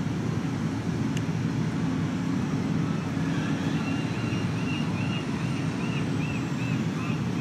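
Steady low rumble of city traffic heard from high above the streets. From about halfway, a run of short, high notes repeats about three times a second for a few seconds.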